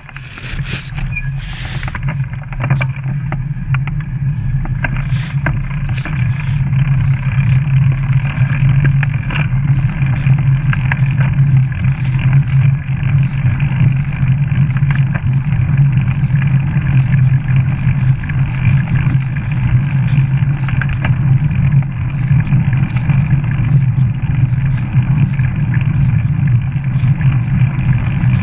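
Steady wind and tyre noise from a bicycle riding on a paved path, with frequent small clicks and rattles from the bike.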